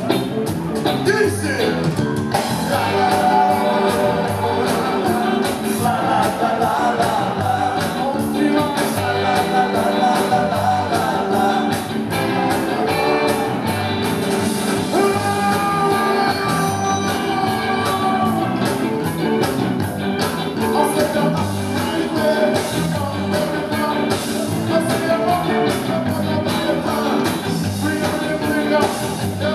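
A live ska band playing a song at full volume: bass guitar, electric guitars, drums and keyboards keeping an upbeat rhythm, with a man singing over them.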